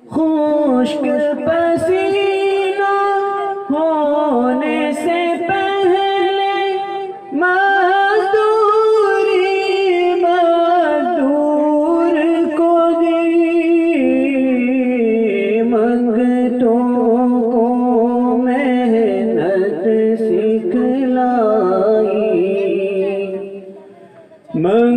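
A naat, an Urdu devotional poem in praise of the Prophet, sung in long ornamented phrases with held notes. The singing pauses briefly about seven seconds in and again near the end.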